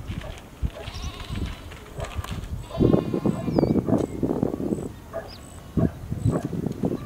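A farm animal bleating, a quavering call about three seconds in, over thumps and rustling, with short high chirps repeating through the second half.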